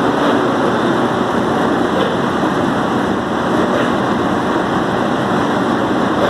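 Box-type coffee dryer's blower fan running steadily: a loud, even rushing noise of air driven through the bed of wet coffee.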